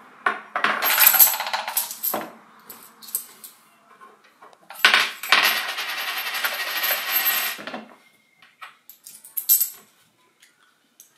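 Coins clattering against a hard PVC plastic coin box in two stretches, the second lasting about three seconds, followed by a few light clicks near the end.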